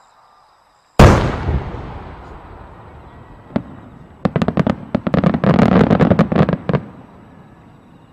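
Fireworks: one loud bang about a second in with a long fading rumble, then a single crack and a rapid string of crackling bangs lasting about two and a half seconds.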